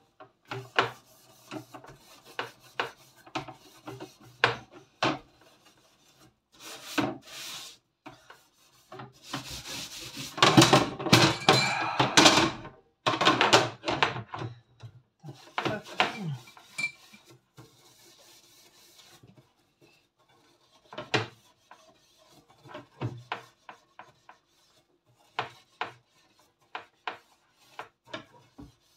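Wire oven rack being scrubbed by hand, a scrubbing pad rubbing over the metal wires in short irregular strokes, with a louder stretch of hard scrubbing about ten to thirteen seconds in.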